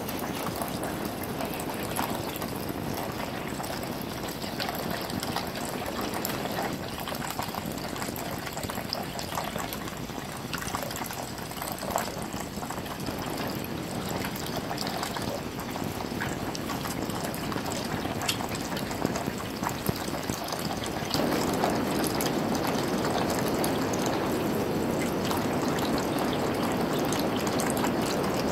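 Thin stream of tap water running into a bathroom sink, with small splashes and patters as a green-cheeked conure bathes in the shallow water under it. The water sound gets louder about two-thirds of the way through.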